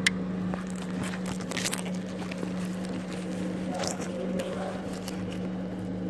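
A few light metallic clicks and a short rattle as the loosely bolted camshaft sprocket of a BMW N47 diesel is handled, over a steady low hum.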